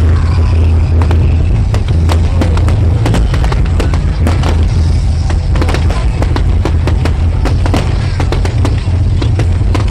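Fireworks going off in quick succession: a dense run of crackles and sharp bangs over a heavy low rumble.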